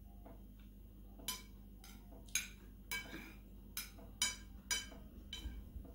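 A metal spoon clinks against a ceramic plate: a run of about seven or eight sharp clinks, starting about a second in.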